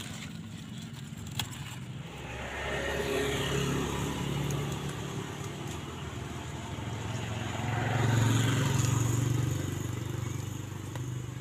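Motor vehicles passing on a nearby road, their engine noise swelling and fading twice, louder the second time. A single sharp click sounds about a second and a half in.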